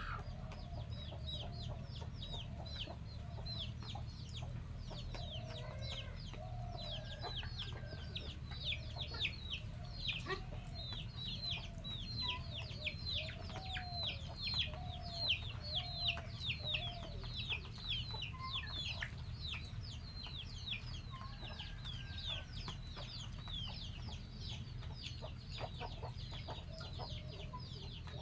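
Chickens clucking in a low, wavering run, with a dense stream of rapid, high, falling chirps over it.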